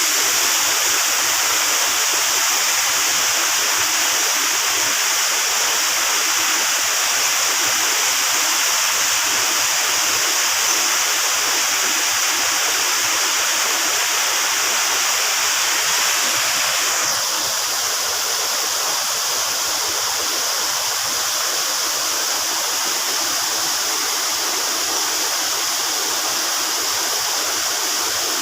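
Waterfall rushing steadily, a constant roar of falling water; the sound thins and drops a little about two-thirds of the way through.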